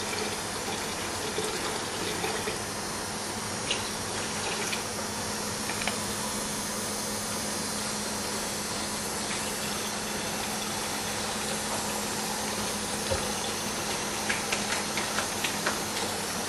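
Small fuel pump running with a steady hum, drawing water- and sand-contaminated diesel through a fuel–water separator, with liquid flowing continuously. Water is poured in from a bottle at the start, and a few light clicks come near the end.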